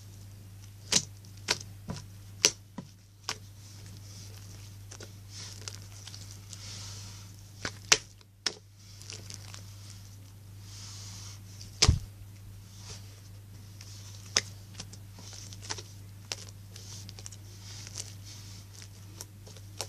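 Slime being pressed and squished by hand, making irregular sharp clicks and pops as air pockets burst, over a soft sticky hiss. One louder pop comes about twelve seconds in.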